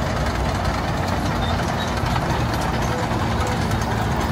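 Churchill tank driving along a dirt track: its engine runs steadily and its tracks run, making one continuous loud, even noise with a low steady hum underneath.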